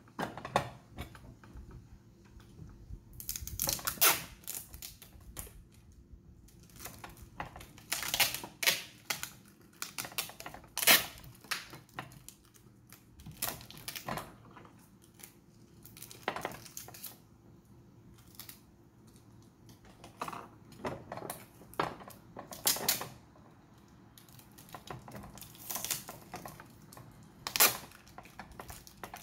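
Brown packing tape pulled off its roll in repeated short, sharp rips as it is wound around a body wash bottle's cap to keep it from leaking, with soft handling of the plastic bottle between rips.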